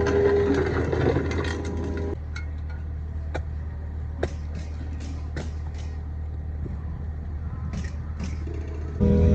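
Kobelco SK55 excavator's diesel engine running under load as it digs. About two seconds in it drops to a quieter, steady run with scattered clicks and knocks, then picks up loudly again near the end.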